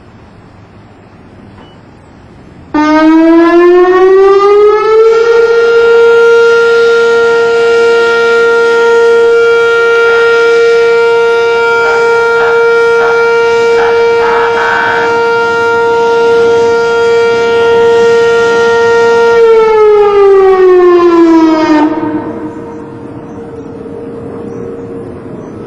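Whelen outdoor tornado warning siren sounding a steady alert for its monthly test: it starts suddenly about three seconds in, rises in pitch, holds one loud steady tone for about fourteen seconds, then winds down in pitch, leaving a fainter tone lingering near the end.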